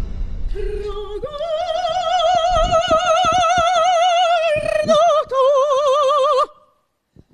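Soprano singing an operatic phrase unaccompanied, with wide vibrato: a long held note, then a rise to a higher held note that cuts off abruptly near the end.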